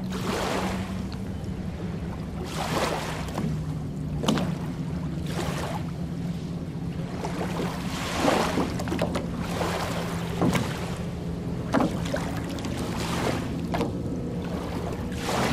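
Small waves lapping and splashing on a sandy lakeshore, washing in every second or two with sharp little splashes. A steady low hum runs underneath.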